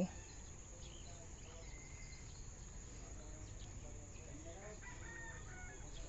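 A rooster crowing faintly in the distance in the second half, over a low steady outdoor background.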